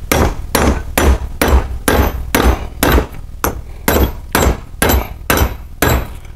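Hammer blows driving an old bearing race into a Land Rover Defender 90 rear hub, metal on metal: a steady run of about two strikes a second, each with a short metallic ring.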